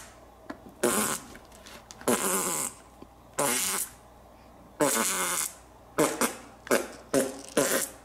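A string of about eight fart noises. The first four are longer and spaced a second or so apart, and the last four are short and come about two a second.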